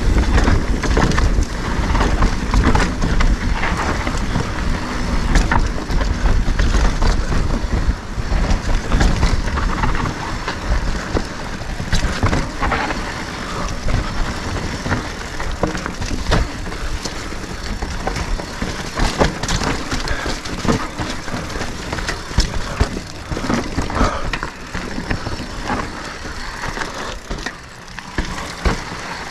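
Mountain bike ridden through a rock garden: tyres and frame knocking and rattling on the rocks, many sharp knocks over a constant low rumble.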